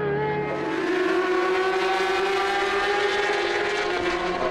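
Superbike racing motorcycles at high revs on track: a loud, steady high-pitched engine note that dips slightly in pitch about a second in.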